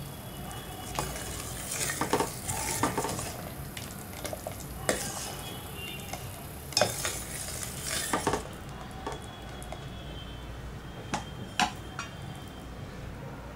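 Steel spoon stirring boiling sugar syrup in a stainless steel pot, clinking and scraping against the sides as the syrup is boiled down for boondi laddu. The stirring stops about eight seconds in, and near the end there are two light metal clinks.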